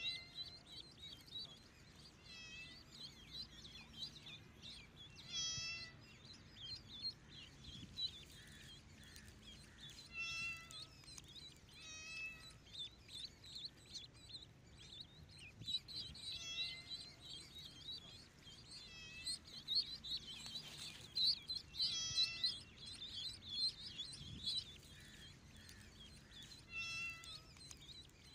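A kitten meowing in short calls every few seconds, over near-constant high peeping of ducklings.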